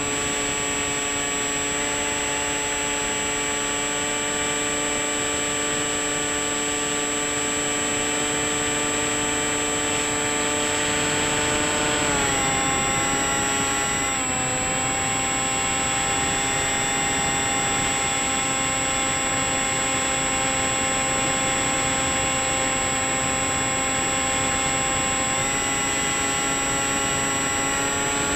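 Bixler 3 RC plane's electric pusher motor and propeller, heard from the onboard camera: a steady whine of several tones over a rush of wind. Its pitch dips slightly about twelve seconds in and shifts again near the end.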